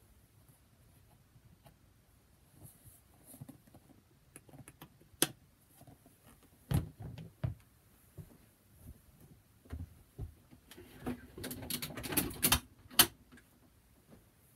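Handling noise from a life-size dancing Santa animatronic as its head is lifted off and set down: scattered knocks and clicks, then a quick run of clicking and rustling near the end.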